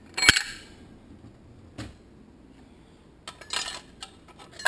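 Steel low-reverse clutch plates of a Toyota A340 automatic transmission clinking against each other and the case as they are set in by hand. There is a sharp metallic clink about a quarter second in, a duller knock near two seconds, and a short cluster of clinks in the last second and a half.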